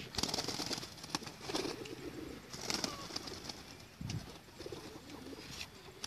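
Racing pigeon's wings flapping in a series of short rushing beats as it flies in, loudest in the first second and again about three seconds in.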